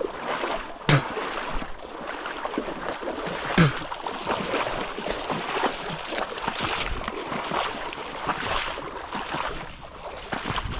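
Feet wading through shallow creek water, with a dog splashing alongside: an irregular run of sloshes and splashes, with two louder thumps about one and three and a half seconds in.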